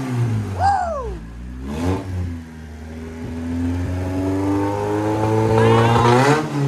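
Honda Civic four-cylinder engine running just after its first start on a new wiring harness. The revs fall off quickly about a second in, then climb slowly for several seconds and drop back near the end, an uneven surging idle.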